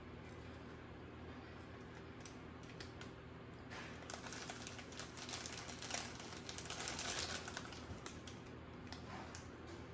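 Plastic chip bag crinkling and rustling as a hand rummages in it for chips, a dense patter of crackles that is busiest from about four to eight seconds in.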